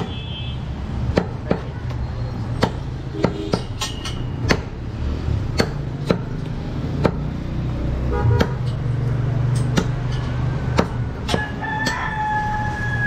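Large butcher's knife chopping goat meat and bone on a wooden log chopping block: sharp, irregular blows about one a second. Near the end a rooster crows once, a long held call.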